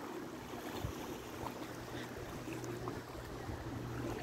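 Shallow seawater lapping and rippling at the shoreline, with a low steady hum underneath.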